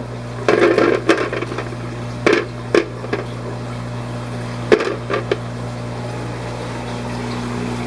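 Steady low electrical hum of fish-room equipment, with intermittent short rustles and light knocks of packing being handled.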